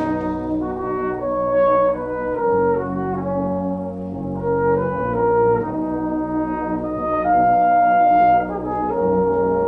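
Youth brass band playing: full held chords with moving lines that change about every second, and one loud held note in the upper voices for about a second, a little past seven seconds in.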